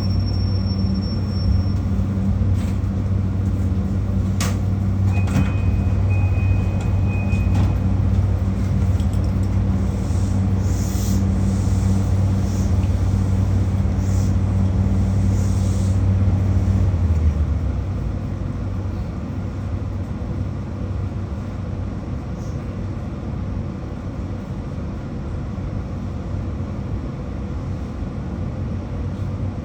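JR Kyushu 821 series electric train slowing for and standing at a station stop: a steady low hum that stops about 17 seconds in, leaving quieter running noise. There are a few sharp clicks and a short high beep in the first eight seconds, and stretches of high hiss in the middle.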